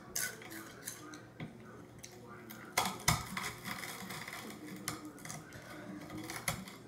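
Metal fork pressing, scraping and tapping on a ceramic plate as Takis rolled tortilla chips are crushed into crumbs, with scattered sharp clinks, the loudest about three seconds in.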